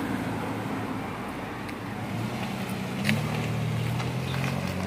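A pickup truck driving slowly past close by, its engine a steady low hum that grows louder about two seconds in, over street traffic noise.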